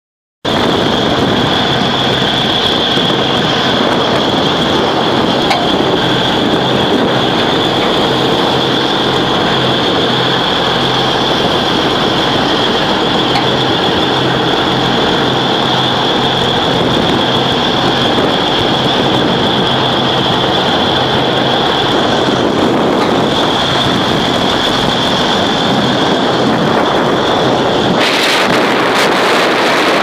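A boat's engine running steadily in rough seas: a low hum and a high steady whine under the rush of wind and breaking waves, with wind buffeting the microphone. Near the end the whine stops and a broader rush of wind and water takes over.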